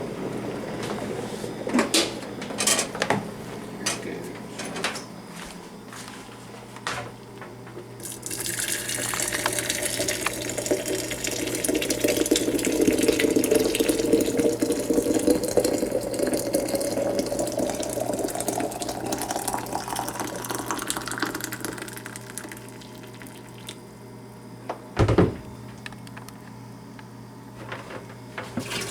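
Clinks and knocks of the coffee maker's parts being handled, then water runs into the thermal carafe for about fourteen seconds, the pitch rising steadily as it fills. A single sharp knock comes near the end.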